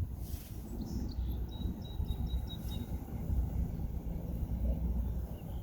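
Outdoor background noise: a steady low rumble, with honey bees buzzing faintly around an open hive and a faint high tone about a second and a half in.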